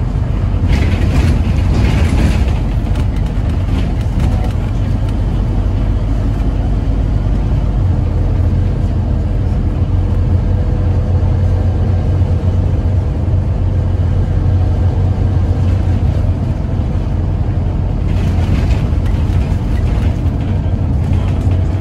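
Inside a moving Scania OmniCity double-decker bus on a Scania N230UD chassis: the engine and drivetrain give a steady low drone, fullest in the middle, with a faint steady whine over it. Brief hiss from passing traffic comes about a second in and again near the end.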